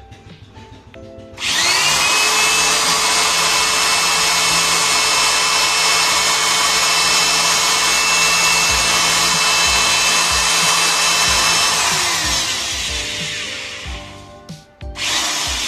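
Khadija SE-01 350 W corded electric drill starting about a second in, its motor whine rising quickly to a steady pitch as it bores into the edge of a wooden board. Near the end it winds down with a falling pitch, then starts again just before the end.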